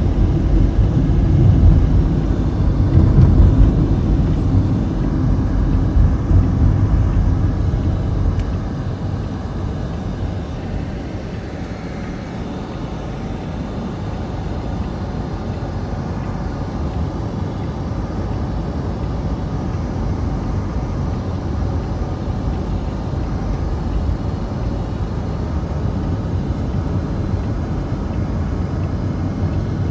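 Steady low road and engine rumble heard from inside a moving car's cabin, louder and more uneven over the first several seconds, then settling to an even drone.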